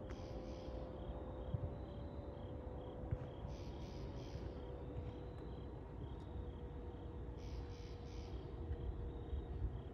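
Night insects calling: a steady, even chirping runs throughout, and a louder call of three raspy pulses comes three times, about every four seconds, over a faint steady hum.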